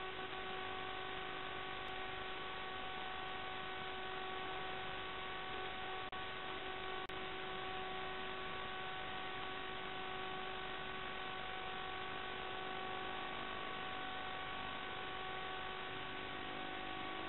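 Small electric RC aircraft's motors and propellers in flight, heard through its onboard camera's microphone as a steady whine of nearly constant pitch over hiss, with a few faint clicks.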